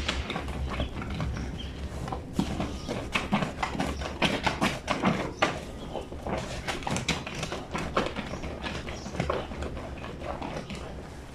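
A wet blanket being scrubbed by hand on the ridged washboard of a granite laundry sink: a quick, uneven run of wet slaps and rubbing strokes, about two or three a second.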